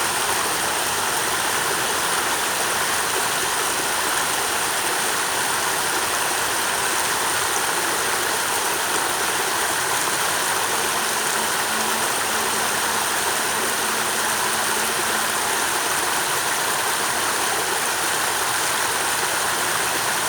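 Flowing water: a stream rushing steadily and evenly, with a thin, steady high-pitched tone over it.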